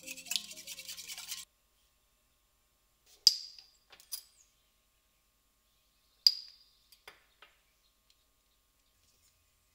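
A wire whisk rattling quickly in a glass mixing bowl over soft mallet-instrument music, both cutting off after about a second and a half. Then two bright, ringing clinks about three seconds apart, each followed by a couple of lighter taps, from a glass storage jar's lid and metal measuring spoons.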